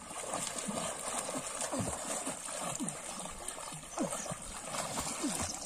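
Water sloshing and gurgling around people swimming slowly in a pond, with a steady wash of water noise and a few short, low gurgles scattered through it.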